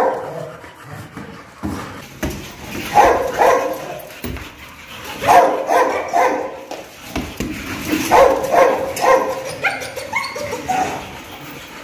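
Dogs barking in short runs of several quick barks, three runs a couple of seconds apart, with a few higher, rising calls near the end.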